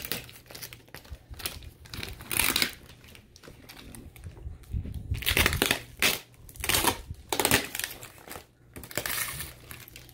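A cardboard shipping box wrapped in plastic film and packing tape being handled and cut open, in several separate bursts of crinkling and scraping.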